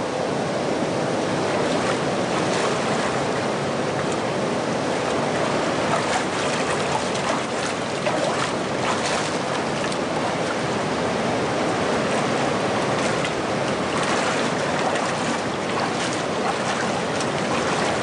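Steady rush of stream water, with scattered splashes as people wade through it.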